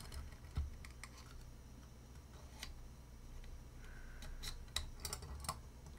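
Faint, scattered light clicks and ticks of small tools against a Springfield Armory 911 pistol magazine, as a thin screwdriver is worked at the witness hole to catch the spring. The ticks come sharper and closer together in the last couple of seconds.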